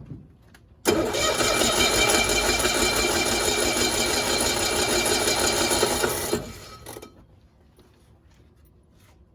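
1965 Cushman Truckster's engine catching about a second in and running steadily for about five seconds, then dying away. Its carburetor is being adjusted and it does not yet keep running.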